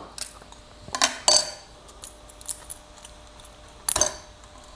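A few short clicks and clinks, loudest a little over a second in and again about four seconds in: a metal spatula and a freshly removed 3D-printed test cube being handled and set down on the printer's glass bed.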